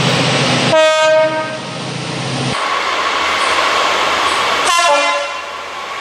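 Train horn sounded in two short blasts, about a second in and again near the end, over the steady rumble of the approaching train.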